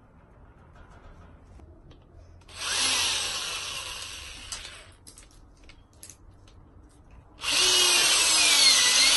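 Corded Black+Decker electric drill boring pilot holes into a wooden perch branch: a first run that starts about two and a half seconds in and winds down, a few light knocks, then a second, louder run from about seven and a half seconds in, the motor's whine wavering in pitch as the bit bites.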